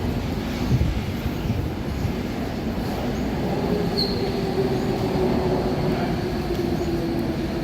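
Docklands Light Railway train moving at the platform: steady rumble with a humming motor tone that falls slightly in pitch, and a short high wheel squeal about four seconds in.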